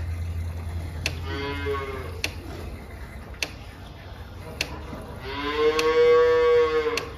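Cattle mooing: a short moo about a second in, then a longer, louder moo near the end.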